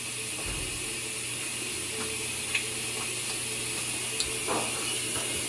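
Steady hiss with a soft low bump and a few faint clicks as a dropped plastic lid is picked up and handled.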